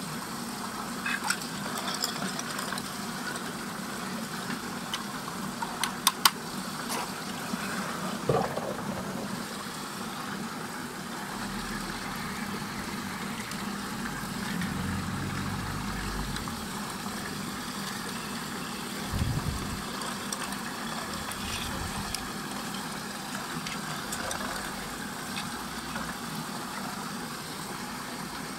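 Water churning in a whirlpool vortex over a steady mechanical hum, with a few sharp plastic clicks and knocks in the first several seconds as toy trucks and drinking straws are handled over the water, and a low thump about 19 seconds in.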